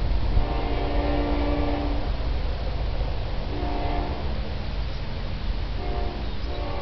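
Distant diesel locomotive's multi-chime air horn sounding a series of blasts: one long blast near the start, a short one in the middle, and two more near the end, the last still sounding. A steady low rumble runs under the horn.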